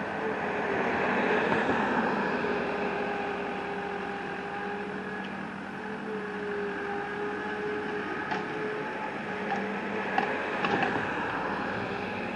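Engine of a machine clearing brush running steadily with a low hum, swelling a little about a second or two in, with a few faint clicks near the end.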